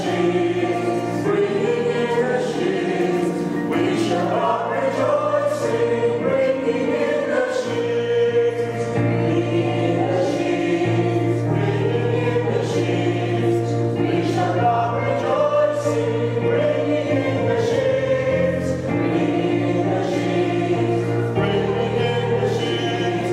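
A group of voices singing a hymn together over sustained chords that change every few seconds.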